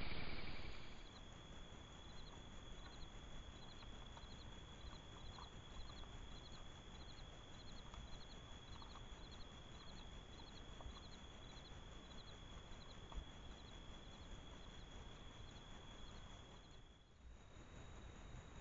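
Night insects calling: a steady high trill with short chirps repeating about twice a second, faint, with a few scattered soft ticks. Near the end the chirping stops and only a steady high trill remains.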